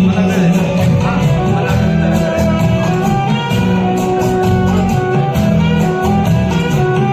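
Karaoke backing track playing an instrumental interlude of a Hindi film song: sustained melody instruments over a steady percussion beat.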